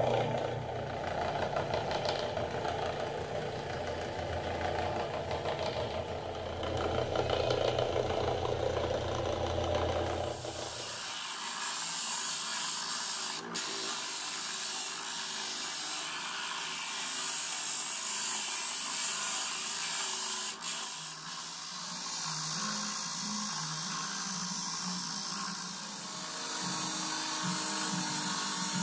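Homemade disc sander driven by an old electric fan motor. The motor runs with a steady hum for about ten seconds, then the sound changes abruptly to a high, hissing rasp of wood being sanded on the spinning disc.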